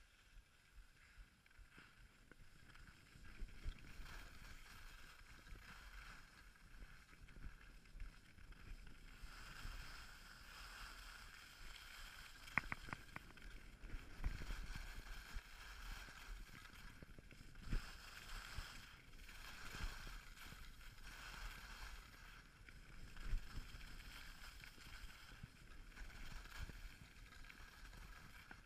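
Skis sliding and scraping over packed snow, a steady rushing hiss that grows louder about a third of the way in, with low thuds from the snow and a few sharp clicks about halfway through.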